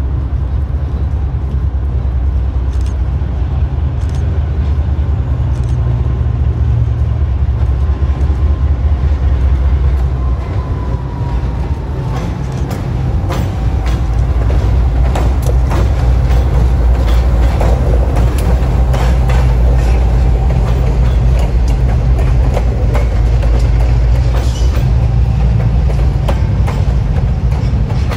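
Diesel freight train going by: a loud, steady low engine rumble with rail cars clicking and knocking. The rumble eases briefly around ten seconds in, then grows louder.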